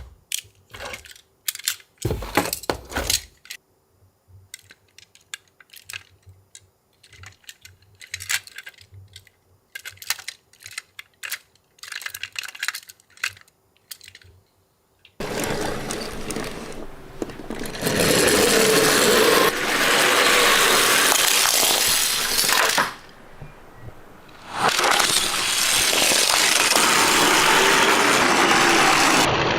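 Small toy cars clicking and clinking against each other as they are handled. About halfway through, a loud steady noise takes over, dipping briefly near the end.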